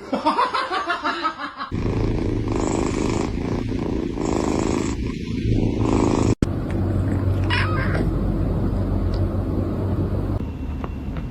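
Cat purring, a steady low rumble that swells and eases with its breaths.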